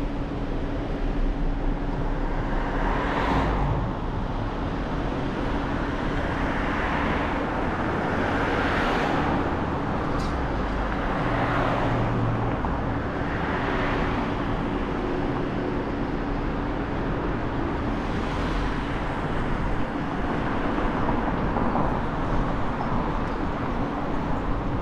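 Car driving on city streets: steady road and engine noise with a low hum underneath, swelling and fading several times as other vehicles pass.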